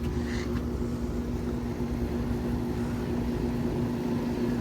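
Trane XR14 five-ton air conditioner condensing unit running steadily: an even electrical hum from the compressor over the low rush of the condenser fan.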